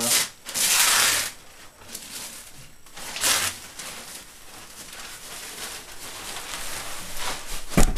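Protective cover being slid off the screen of a new iMac: a long rustling swish about half a second in, a shorter one about three seconds in, softer rustling between, and a thump near the end.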